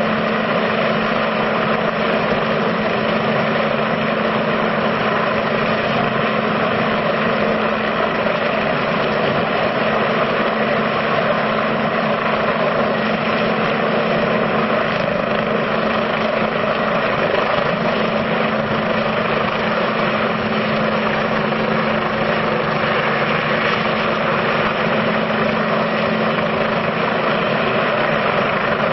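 Helicopter hovering overhead, a loud steady drone with a constant low hum and no change in level.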